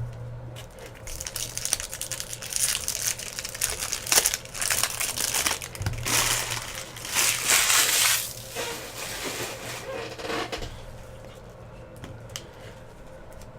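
Wrappers of 2017 Bowman baseball card packs being torn open and crumpled, with cards shuffled, in irregular bursts of crinkling that die down about eleven seconds in.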